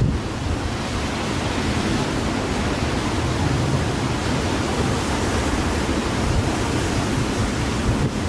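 Gale-force wind of about 45–50 knots buffeting the microphone over breaking surf: a steady, dense rush with a deep rumble.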